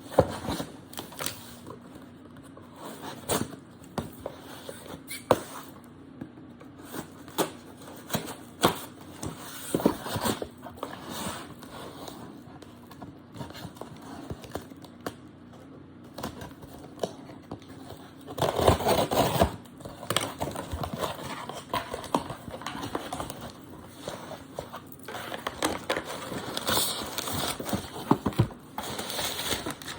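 A shipping package being opened by hand: scattered clicks, knocks and scrapes of packaging being handled, with a louder rough rustle lasting about a second roughly two-thirds of the way through and more crackling near the end.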